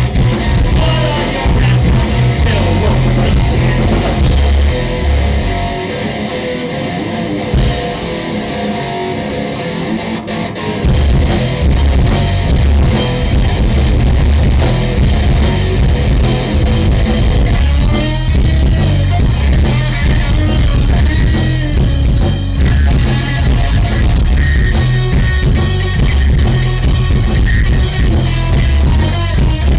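Live rock band with electric guitars and a drum kit playing loud. About four seconds in, the drums and cymbals drop out and the guitars carry on alone; at about eleven seconds the full band comes back in.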